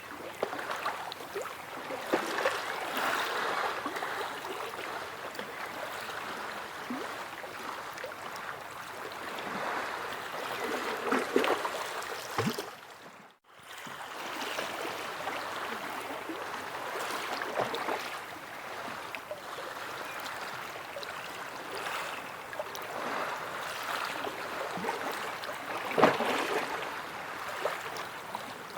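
Sea waves washing and splashing in slow surges. The sound cuts out for a moment about halfway through, then resumes.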